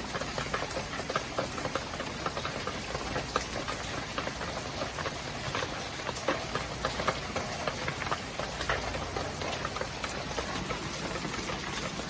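Steady rain falling and pattering, a constant hiss dotted with many small irregular taps of drops.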